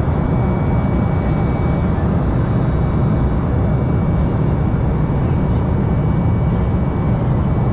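Cabin noise of an Embraer 195LR in flight, heard from a window seat beside its CF34-10E turbofan: a steady deep rumble with a faint high, even tone.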